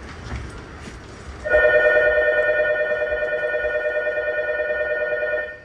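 Electronic station departure bell ringing with a fast flutter for about four seconds, starting about a second and a half in: the signal that the train's doors are about to close and the train is about to leave. Before it, only a faint low rumble.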